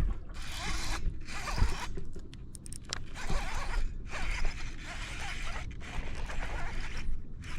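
Fishing reel being cranked hard in repeated bursts, a rasping whir like a zipper, with short pauses between turns and a longer stretch of winding in the second half.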